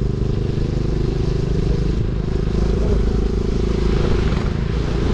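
KTM Duke 250's single-cylinder engine running steadily while the bike is ridden at low speed, with wind rush on the microphone.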